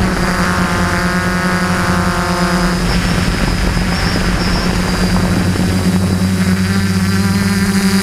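Motors and propellers of a DJI F450 Flame Wheel quadcopter buzzing steadily in flight, heard up close from a camera on the airframe. For the first few seconds a second, higher whine rides on top. Near the end the pitch rises slightly.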